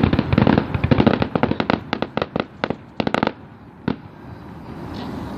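Fireworks going off in a rapid volley of sharp bangs. The bangs thin out after about two and a half seconds, with a few more around three seconds and a last single bang about four seconds in.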